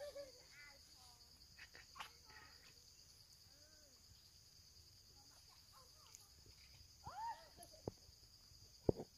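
Steady, high insect chorus of crickets, with a few short chirping calls over it, the loudest about seven seconds in, and a couple of sharp clicks near the end.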